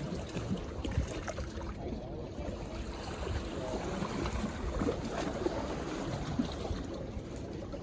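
Wind rumbling on the microphone and sea water washing against the jetty rocks, a steady low noise with no clear events.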